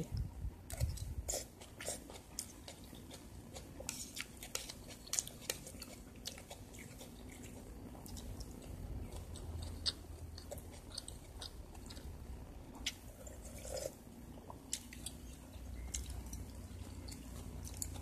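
A person chewing food close to the microphone, with many small scattered clicks from mouth and spoon.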